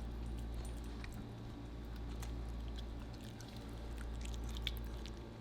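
Pomsky puppy chewing and eating a piece of orange: scattered small wet clicks and smacks over a steady low hum.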